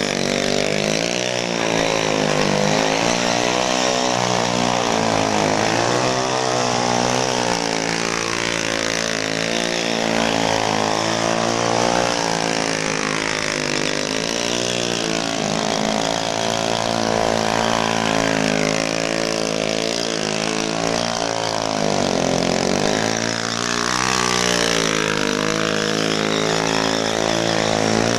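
Small motorcycle engine revved up and down over and over, its pitch rising and falling every few seconds, as the bike is ridden in tight stunt circles.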